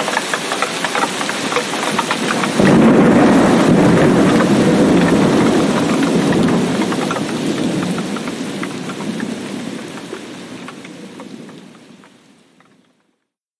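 Heavy tropical rain with many distinct drops, joined suddenly a few seconds in by a deep rumble of thunder that holds for several seconds and then slowly dies away. The whole sound then fades out to silence near the end.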